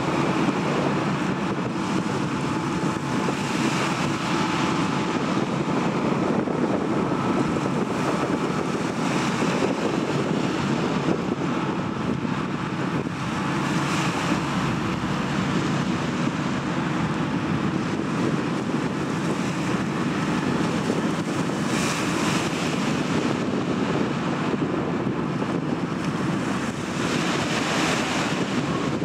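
Wind on the microphone and waves washing, over the steady low drone of a general cargo ship under way close by. The wind swells in gusts every few seconds.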